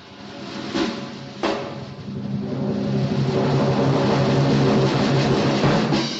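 Cartoon sound effect from a studio library: two sharp drum-like hits, then a long low pitched sound that swells, holds steady and fades out near the end.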